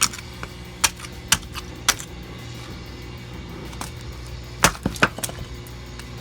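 Sharp, irregular knocks and clacks of hard plastic as a broken alarm clock is struck and its pieces knock together, about seven hits with a quick cluster of three about four and a half seconds in.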